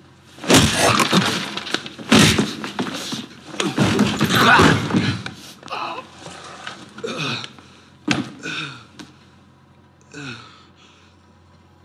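Three loud crashing thuds in the first five seconds, then a few short vocal cries that each fall in pitch, as if muffled.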